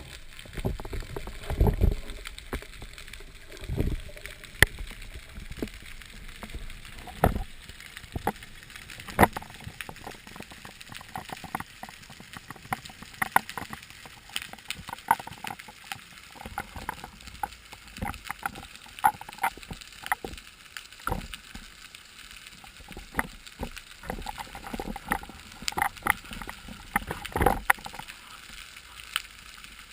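Underwater sound picked up by a camera in its housing during a spearfishing dive: many scattered, irregular sharp clicks and crackles over a faint background hiss, with a few low thumps in the first few seconds.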